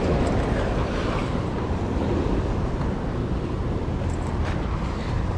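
Steady wind rumbling on the microphone, with waves washing against the jetty rocks.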